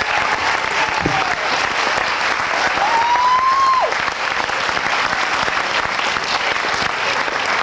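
Audience applauding steadily. Two long high notes from someone in the crowd rise above the clapping, one right at the start and one about three seconds in that ends in a sharp drop.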